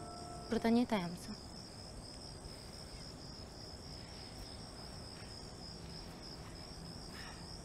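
Crickets chirping in a steady, evenly pulsing high chorus. About half a second in there is a brief falling, voice-like sound.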